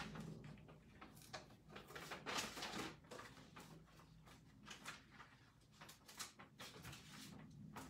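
Faint rustling with scattered light clicks and knocks: someone rummaging through stored rubber stamps to find one.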